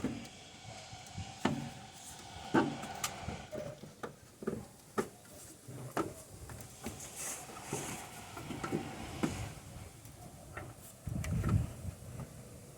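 Irregular clicks and knocks of hard plastic parts being handled as the fuse box is shifted aside in a car's engine bay, with a few duller thuds near the end.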